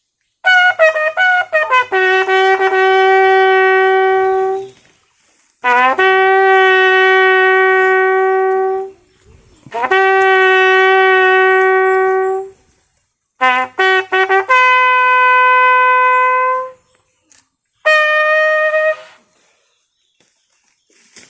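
Military bugle call played solo at a funeral salute: five phrases, each a few quick notes rising into long held notes, with short pauses between them and the last phrase short.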